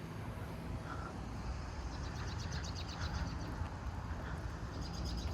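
Steady wind rumbling on the microphone, with a small bird giving a rapid chirping trill about two seconds in and again briefly near the end.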